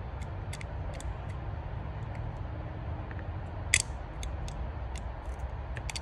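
Utility knife blade scraping and scoring a copper trace on a flasher relay circuit board: a scatter of short scratches and clicks, the sharpest just before four seconds in, over a steady low hum.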